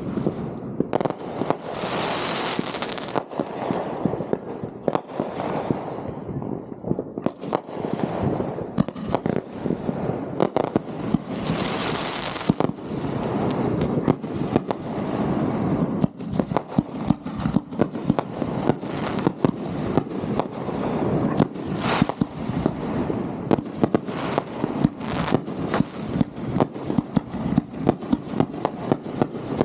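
Fireworks going off in a continuous string of sharp reports and crackling. There are two spells of hissing crackle, about two seconds in and about twelve seconds in. From about the middle on, the reports come in a rapid run, several a second.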